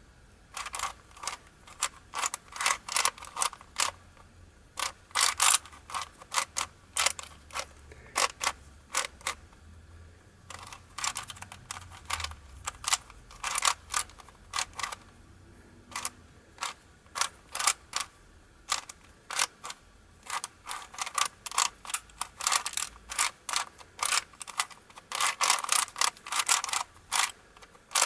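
Aluminium Rubik's Cube, metal-capped pieces on a plastic core, being solved by hand. Its layers turn in quick runs of short clicking scrapes, several a second, with brief pauses between runs.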